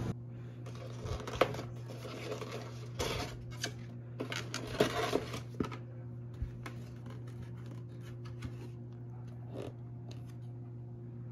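Cardboard cake box being opened by hand: scattered rustles and clicks of the paper flaps, densest in the first half and thinning out later, over a steady low hum.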